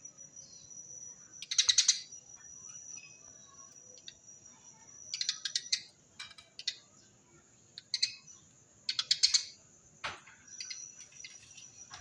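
Eurasian tree sparrow giving bursts of rapid, tightly spaced chirps, the 'tembakan rapet' chirp series, in about five bursts separated by short pauses. A steady high-pitched tone runs underneath, and there is one sharp click about ten seconds in.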